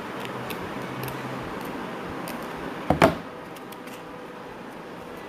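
Scissors snipping through thin card in a series of faint clicks over a steady background hiss, with one sharper, louder handling sound about three seconds in.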